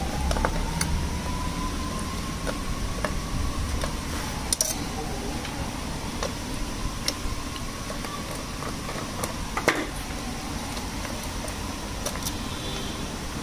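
Small metal clicks and taps of a screwdriver and loosened screws being worked out of an engine control module's aluminium casing, with two sharper clicks about four and a half and ten seconds in, over steady background noise.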